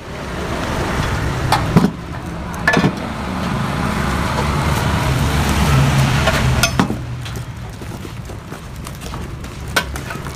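A vehicle engine running steadily, swelling a little toward the middle and easing off again, with a few sharp clicks or knocks over it.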